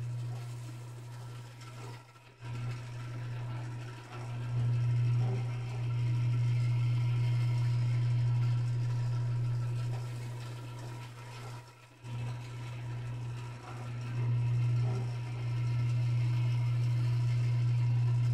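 Rotisserie motor of a 1964 Caloric Ultramatic oven humming steadily as it turns the spit rod. The low hum dips briefly twice, about ten seconds apart.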